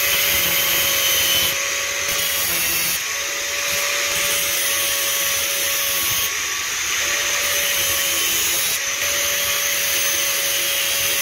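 Angle grinder running with an abrasive cut-off disc, cutting through the protruding ends of metal bolts: a steady motor whine under a grinding hiss whose brightness shifts several times as the disc bites.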